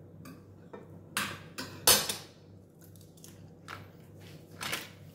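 Metal cutlery clinking and clattering against a ceramic plate as a knife and fork are handled and set down: a handful of sharp clinks, the loudest about two seconds in.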